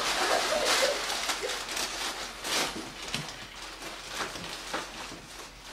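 Paper rustling and crinkling as a gift box is opened and its wrapping handled, in short irregular bursts, the loudest about a second in and again about two and a half seconds in.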